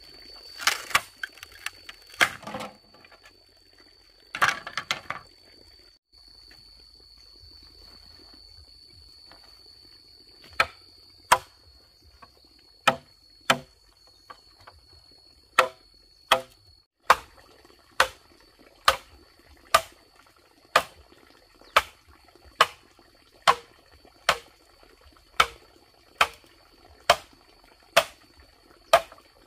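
Bamboo being struck with a machete. A few loud, jumbled crashes come near the start, then scattered chops, then a steady run of sharp knocks a little over one a second.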